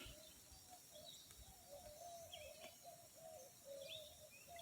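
Faint birds calling: a steady run of short, low notes, with a few higher chirps over it.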